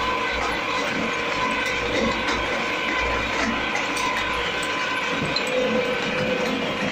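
Small multi-purpose claw-mill shredder for Tetra Pak cartons running steadily: a continuous mechanical whir with a faint steady hum over it.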